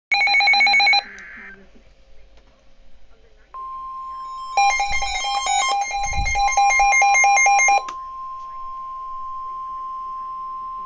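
Emergency alert tones: about a second of rapid electronic beeping, then a steady single-pitch warning tone that comes in about three and a half seconds in and holds. Over it, a second run of rapid beeping lasts about three seconds, with a brief low rumble in the middle.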